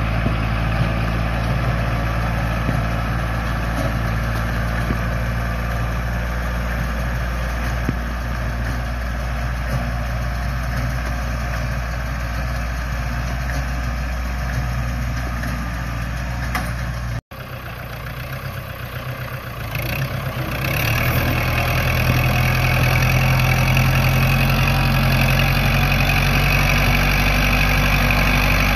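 Kubota tractor's diesel engine running steadily under load as it pulls a cassava stem-cutting planter through tilled soil. About two-thirds of the way through the sound cuts off abruptly and comes back quieter, then a few seconds later it runs louder and closer.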